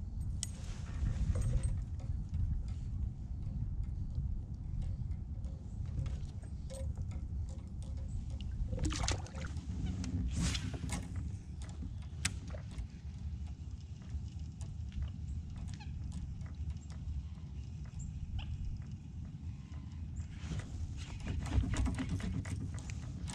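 Wind rumbling on the microphone, with scattered knocks and clicks from fishing gear and the plastic kayak being handled; the knocks come in thicker clusters about ten seconds in and again near the end.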